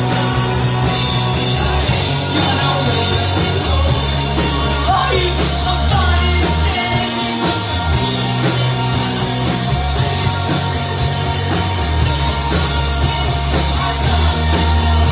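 Live rock band playing loud amplified rock: electric guitars, bass and drums, with the bass holding notes that change every second or two.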